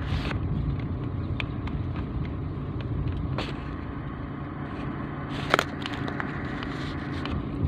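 Car driving, heard from inside the cabin: a steady low engine and road rumble, with a few light clicks and knocks, the sharpest about five and a half seconds in.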